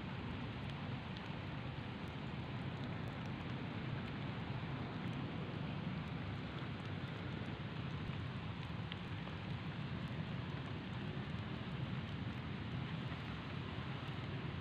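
Steady rushing background noise with no distinct sounds standing out, heaviest in the low range.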